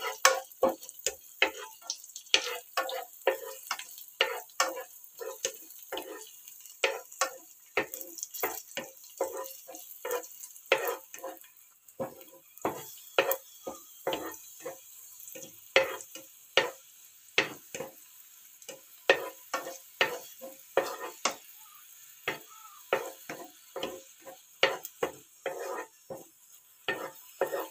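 A spatula stirring raisins frying in ghee in a nonstick pan: short, irregular scrapes and taps, about two or three a second, over a light sizzle.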